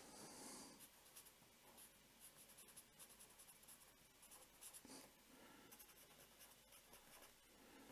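Very faint scratching of a felt-tip pen writing on paper in short, irregular strokes.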